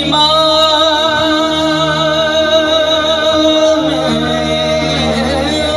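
Live devotional music: a male voice holds one long, wavering note over a steady sustained drone, then moves to a new note a little before the end.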